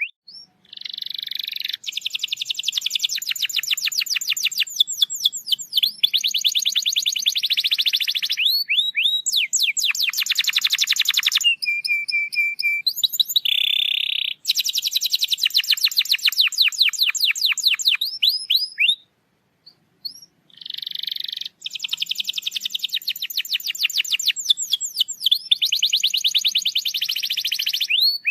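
Domestic canary singing a long, fast song of rapid trills and rolls, each phrase a run of quickly repeated high notes, with a brief pause about two-thirds of the way through. It is a lure song, played to prompt canaries that are reluctant to sing.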